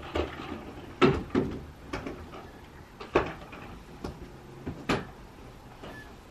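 Several irregular knocks and clunks of household handling, about seven over several seconds, the loudest about a second in.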